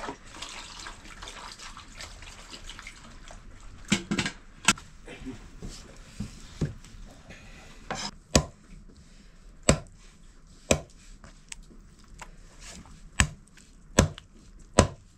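Knife chopping toad meat on a wooden stump chopping block: about nine sharp single chops, starting about four seconds in and coming roughly a second apart, after a few seconds of soft rustling noise.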